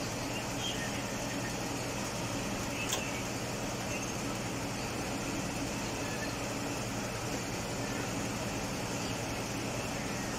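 Mazda CX-9 engine idling steadily with the air conditioning running, as its AC system is charged with Freon through a manifold gauge set. A single short click about three seconds in.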